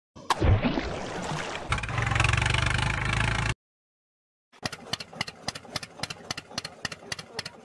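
Tractor engine sound effect running, with water splashing as the toy tractor and trailer plough through a muddy puddle; it cuts off abruptly after about three and a half seconds. After a second of silence, a rapid, uneven clatter of clicks, about four a second, runs to the end.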